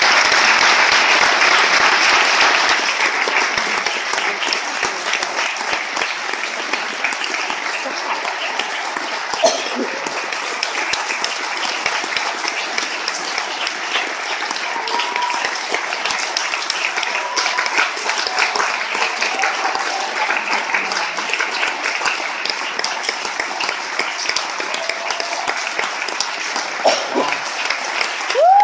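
Audience applauding a concert band, a dense steady clapping that is loudest in the first few seconds and then settles, with a few voices calling out over it.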